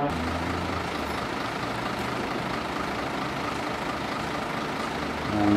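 Semi-trailer truck's diesel engine idling: a steady low hum under an even rushing noise.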